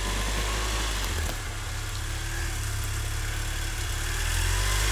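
Engine of an all-terrain vehicle on large tyres running as it drives through snow, a steady low rumble that revs up and eases back near the end.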